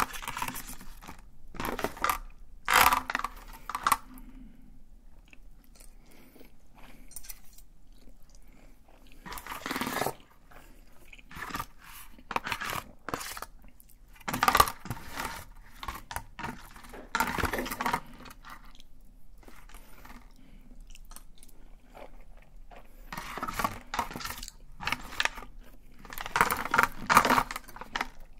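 Metal fork and knife scraping and clinking against an aluminium foil takeout pan of spaghetti, in short bursts every few seconds, loudest near the start and near the end.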